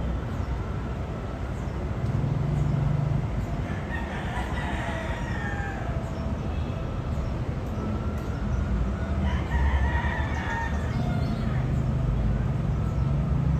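A rooster crows twice, about four and nine seconds in, each crow about two seconds long, over the steady low rumble and hum of a diesel train.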